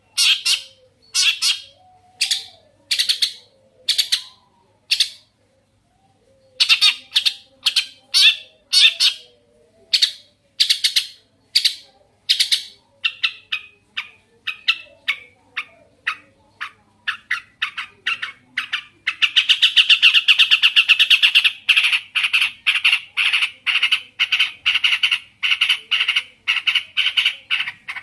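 Long-tailed shrike (cendet) singing with loud, harsh repeated calls, about two a second, with a short pause about six seconds in. From about thirteen seconds in the notes come faster, running into a rapid chatter around twenty seconds in, then into quick strings of notes.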